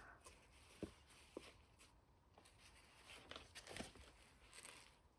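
Near silence with a few faint, soft clicks and rustles from handling spools of craft trim.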